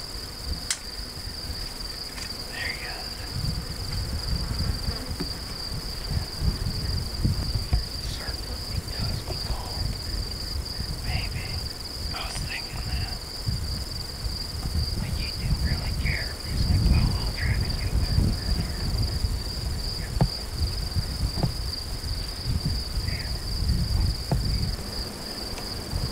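A chorus of crickets singing, one steady high-pitched drone that never breaks, with irregular low rumbles on the microphone that are at times louder than the insects.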